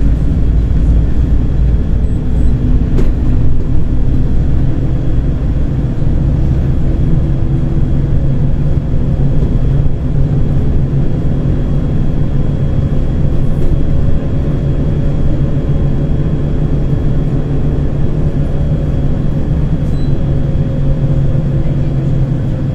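Volgabus-5270.G2 city bus, fuelled by liquefied natural gas, under way: a steady low drone of engine and road noise inside the cabin, with a faint engine tone that sinks slightly in pitch in the second half.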